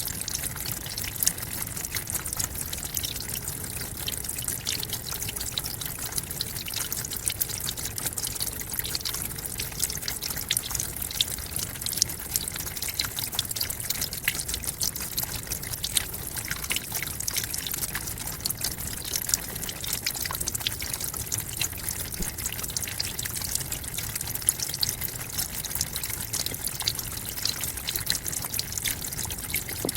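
Tropical forest waterfall: a steady rush of falling water with constant fine splashing and spattering droplets and a low rumble underneath.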